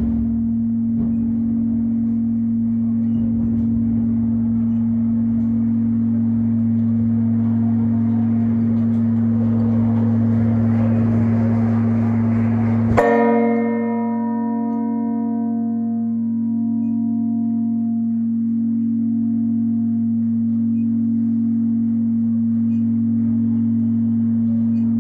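Peal of six church bells with a deep steady hum throughout. Ringing swells, then a loud bell stroke about halfway through leaves its overtones dying away over a few seconds.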